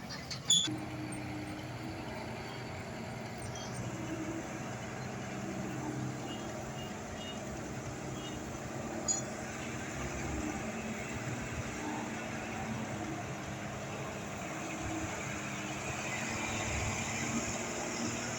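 Old truck's diesel engine running steadily under load, its drone building slightly near the end. There is a sharp click about half a second in and a brief knock about nine seconds in.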